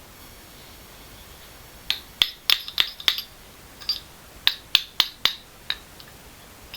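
Sharp metallic taps of a hammer on a shock-absorber strut, about a dozen irregular clinking strikes beginning about two seconds in, each with a short bright ring.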